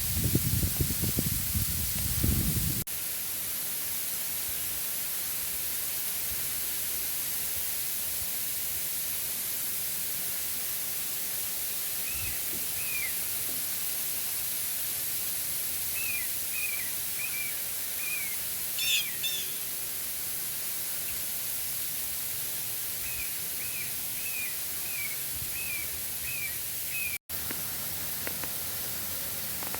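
Heavy sleet falling, a steady hiss, with a low rumble in the first few seconds. A small bird chirps in short runs of quick notes several times through it.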